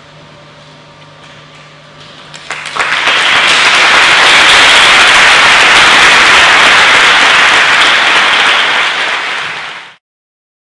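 Audience applause: a few scattered claps about two seconds in, then full, steady clapping that fades and cuts off abruptly near the end.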